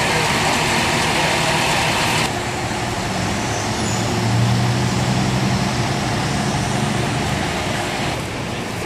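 Fire truck diesel engines running in city traffic. At first one runs with a steady hiss, which breaks off suddenly about two seconds in. Then another engine's deep drone swells around four seconds in and eases off.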